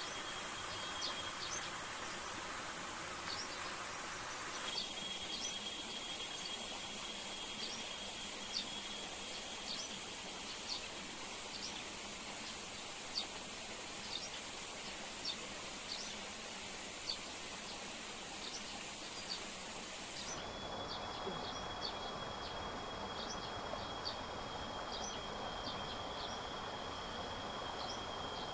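Forest ambience: a steady high insect drone with short high chirps repeating roughly once a second, over a steady rushing hiss. The background shifts abruptly about five seconds in and again about twenty seconds in.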